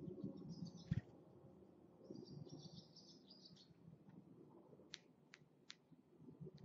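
Barn swallow twittering in two runs of quick high chirps, with a dull thump about a second in, then three sharp clicks near the end.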